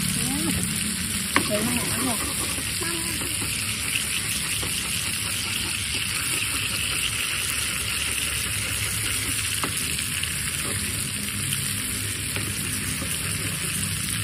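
Oil frying hard in a shallow pan, a steady crackling sizzle, while a wooden spatula stirs through it. There is one sharp knock about a second and a half in.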